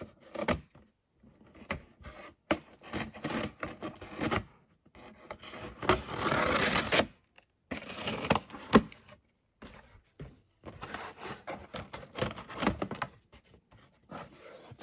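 Scissors slitting the packing tape along a cardboard shipping box: scattered scrapes, rubs and clicks of blade and cardboard, with one continuous rasping slice about six seconds in that lasts about a second. Cardboard flaps are pulled open near the end.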